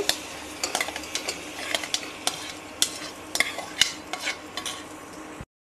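A metal spoon scraping soaked sprouts off a plate into an aluminium pressure cooker, with irregular clinks of the spoon against plate and pot, over a soft sizzle of spiced masala frying in oil. The sound cuts off suddenly near the end.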